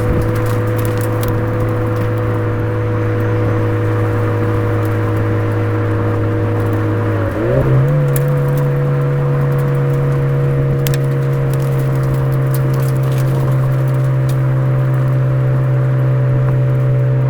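Suzuki Swift Sport ZC33S 1.4-litre turbo four-cylinder running through a Fujitsubo aftermarket exhaust, with a steady drone at constant engine speed. About seven and a half seconds in, the engine speed steps up quickly and then holds at the higher pitch.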